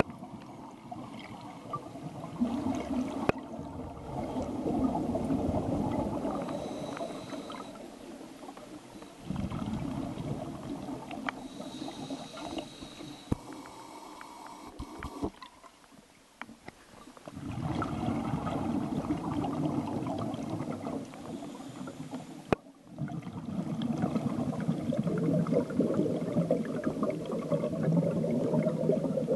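Underwater air bubbling and gurgling, picked up by the camera below the surface, coming in long swells of several seconds with short quieter gaps between them.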